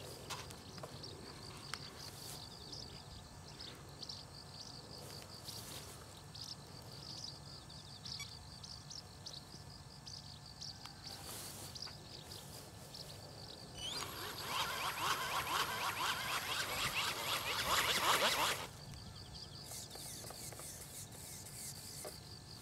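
Steady high chirping in the field, and about two-thirds of the way in a loud whirring burst of about four seconds from the electric ornithopter's motor and flapping wings run while held in the hand, with a thin high whine over it; it starts and cuts off abruptly.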